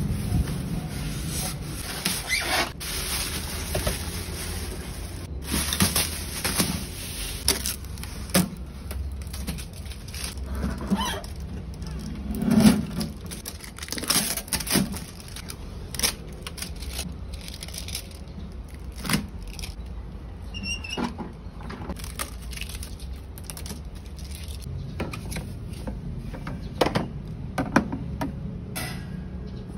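Unpacking noises of a dish sterilizer: plastic wrapping rustling, foam packing pieces scraping, and irregular clicks, knocks and rattles as its clear plastic cover and stainless wire dish rack are handled. The loudest knock comes about twelve seconds in.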